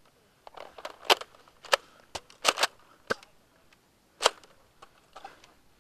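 Spring-powered Nerf blaster being primed and fired, a series of about seven sharp plastic clacks at irregular spacing, two of them in quick succession about halfway through.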